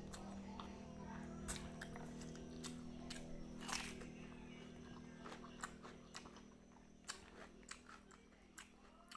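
Close-miked chewing of food, with irregular small wet clicks and crunches from the mouth.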